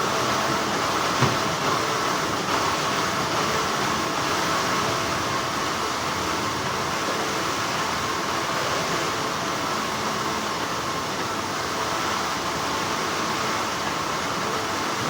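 Steady, continuous hum of textile factory machinery, with one brief click about a second in.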